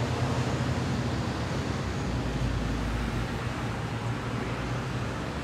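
Steady background traffic noise with a constant low hum.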